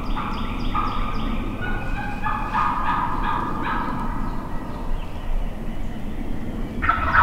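Wild turkey gobblers gobbling again and again, calls overlapping at different pitches, with a louder round of gobbling near the end.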